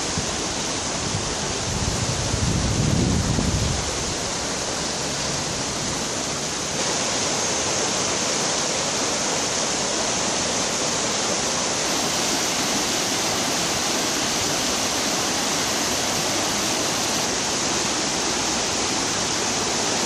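Fast, muddy river in spate rushing over shallows in a steady, even noise. A low rumble joins it about two to four seconds in, and the rushing gets a little louder about seven seconds in.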